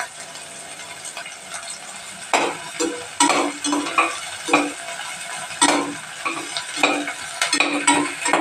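Chopped onions and green chillies sizzling steadily in oil in a stainless steel pot. From about two seconds in, a slotted steel spoon stirs them, knocking and scraping against the pot about a dozen times with a ringing metallic sound.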